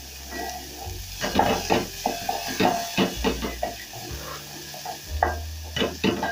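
Wooden spoon stirring onions and garlic in a metal pan, with many irregular scrapes and knocks of the spoon against the pan and a light sizzle of the onions frying in a little oil.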